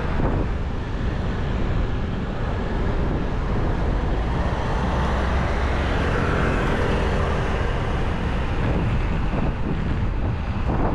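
Wind rushing over an action camera's microphone on a moving road bike: a steady low rumble with a hiss above it.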